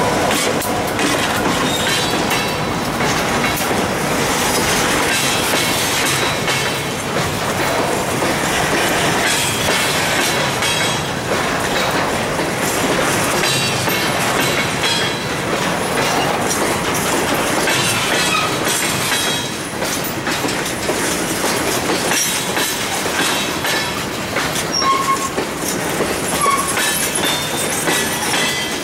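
Empty covered hopper cars of a freight train rolling past: steel wheels clicking over rail joints with a steady rumble, and a few short wheel squeals near the end.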